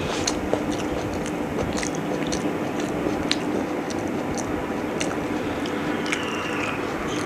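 A person chewing and biting a mouthful of chicken biryani, with short mouth clicks at irregular moments, over a steady background hiss and low hum.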